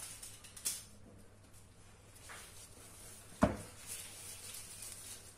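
Quiet kitchen handling sounds, with a light click near the start and one sharp knock about three and a half seconds in.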